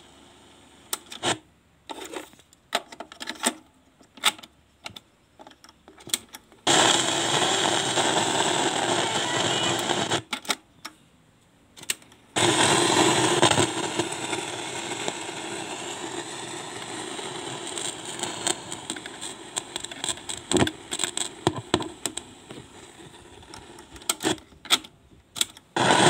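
Sanyo C12 MkII cassette boombox: the piano-key transport buttons clunk several times, then the speaker puts out a loud rushing noise with a steady low tone in it, cutting out briefly once and slowly fading. This noise on play is a common fault of Sanyo decks, which the owner cures by tapping the tape head with metal while pressing play.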